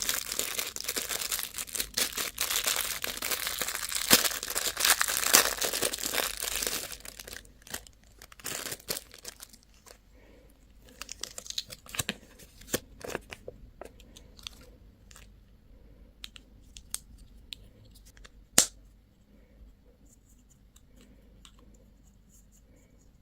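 Candy wrapper being torn open and crinkled for about seven seconds, then sparse crackles and light ticks as it is handled, with one sharp click a little past halfway.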